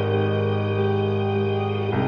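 Background ambient music: sustained synth-like chords, one held chord changing to the next at the end.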